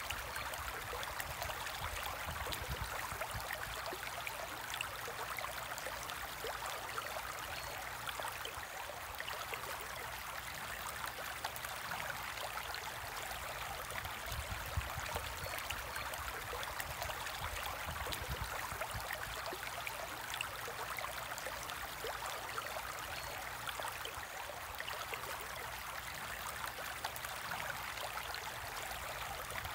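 Aquarium water trickling and bubbling steadily, with many tiny pops and a low hum underneath.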